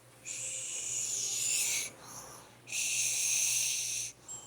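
A small child fake-snoring in imitation of a snoring adult: two long, breathy, hissing breaths, each about a second and a half, with a short pause between.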